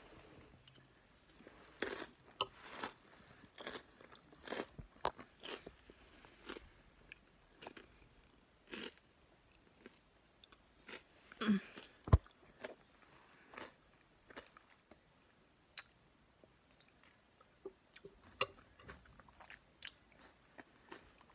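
A person chewing and crunching a mouthful of chili with Frito corn chips, in short irregular crunches. There is a brief hum about halfway through and a sharp click just after it.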